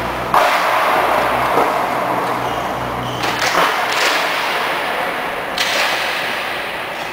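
Table tennis rally: a few sharp knocks of the ball on paddles and table, over a steady wash of noise echoing in a large sports hall.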